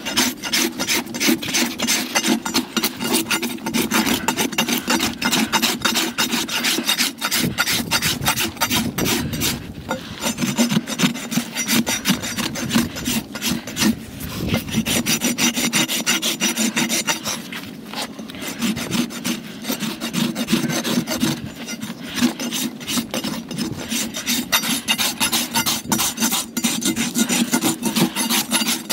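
A farrier's hoof rasp filing across the ground surface of a horse's hoof in quick, repeated back-and-forth strokes, with a few brief pauses between runs.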